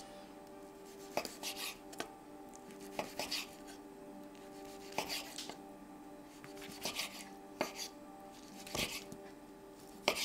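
Kitchen knife slicing through a seared, pan-fried pork chop on a wooden cutting board, each cut a short crisp scrape ending in a tap on the board. The cuts come in short runs every second or two, over soft background music.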